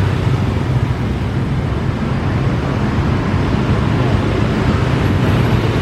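Street traffic: motorcycles and cars passing, with the steady low diesel rumble of an approaching Mercedes-Benz OH 1626 coach.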